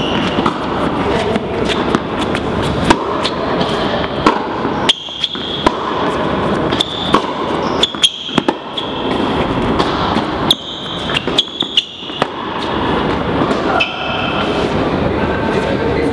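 Tennis rally on an indoor court: sharp knocks of racket strings on the ball and the ball bouncing, one about every second, over a steady hall noise, with short high squeaks between shots.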